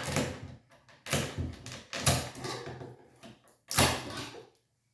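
Knocks and scrapes of a wooden shipping crate being worked apart: about four short, noisy strokes roughly a second apart, with smaller rattles between them.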